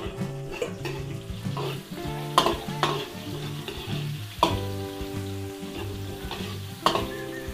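Garlic and onions sizzling as they sauté in hot oil, stirred with a utensil that knocks sharply against the pan several times.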